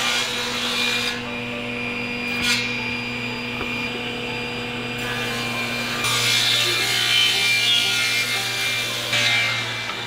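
Industrial wood planer running with a steady motor hum while its cutterhead planes strips of wood being fed through. The cutting noise swells while wood is in the cut, loudest in the second half, with one sharp click a few seconds in.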